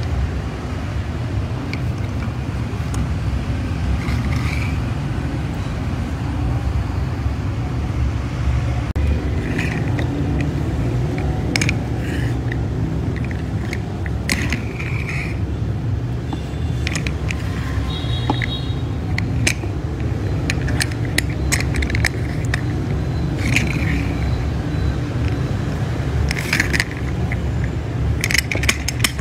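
Hard plastic toy pieces clicking and scraping as they are handled on a wooden table, over a steady low rumble.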